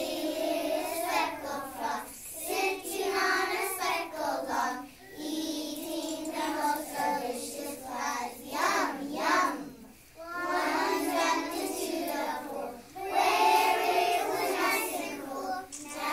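A class of kindergarten children reciting a poem together in unison, in chanted phrases with short pauses between them, about five and ten seconds in and again near the end.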